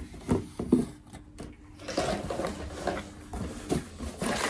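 Small accessories and their packaging being handled, with rustling and a few light clicks and knocks.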